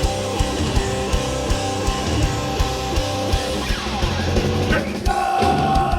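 Hardcore punk band playing live: distorted electric guitars and bass chugging over steady drum hits in a passage without vocals, with a brief break about five seconds in before the full band crashes back in.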